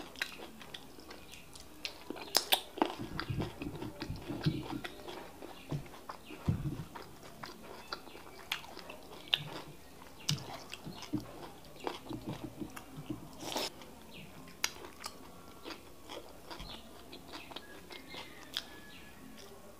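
Close-miked wet chewing and lip smacking of people eating fufu and bitter leaf soup by hand: irregular mouth clicks and smacks, a few of them louder than the rest.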